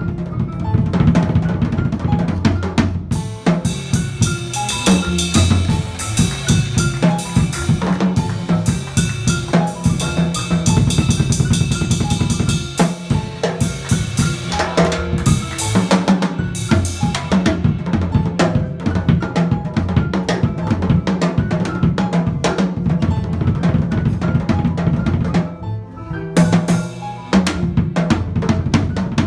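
Jazz drum kit played busily with sticks: quick snare hits and rolls, bass drum and ringing cymbals crowding over each other. It eases briefly near the end, then comes back in.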